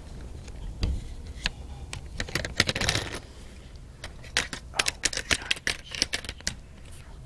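Irregular clicks, taps and rubbing against the microphone, bunched about two and a half seconds in and again from about four to six and a half seconds in: a handheld phone being moved, with fingers brushing and knocking it.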